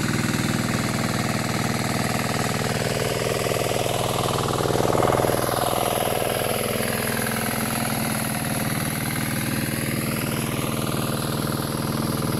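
Engine of a two-wheel hand tractor running steadily as it plows a flooded rice paddy, swelling louder about five seconds in.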